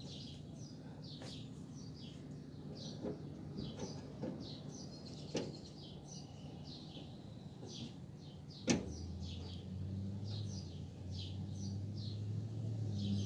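Small birds chirping over and over, with a few clicks and one sharp knock about nine seconds in, after which a low steady hum sets in.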